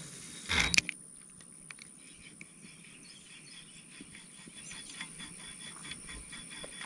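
Quiet pond-bank outdoor ambience, with faint scattered chirps and small ticks over a steady high thin tone. About half a second in there is a brief burst of rustling handling noise ending in a sharp click.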